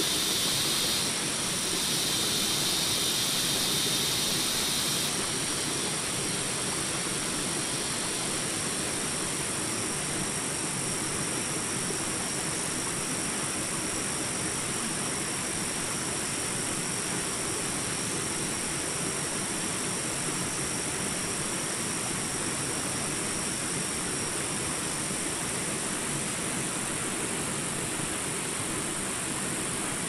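Shallow rocky stream rushing steadily over boulders and small rapids, an even hiss of running water. A high steady buzz sits on top of it and stops about five seconds in.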